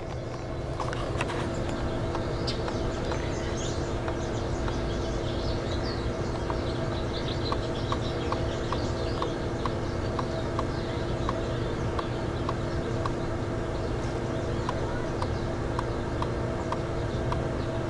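Steady hum of swimming-pool equipment running the Navigator pool cleaner under the cover, with a light clicking that comes and goes through the middle. Birds chirp faintly in the background.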